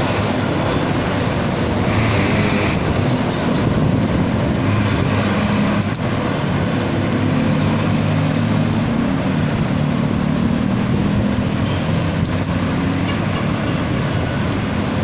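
Steady wind rush and road noise on a handheld phone's microphone while riding a bicycle, with a low hum of traffic underneath and a brief louder hiss about two seconds in.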